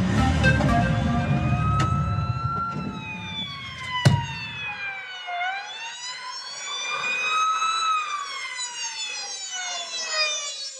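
A wailing siren in an instrumental car-chase track, its pitch rising and falling slowly in long sweeps. The music under it, with heavy bass, fades away over the first five seconds, with one sharp hit about four seconds in, leaving the siren on its own.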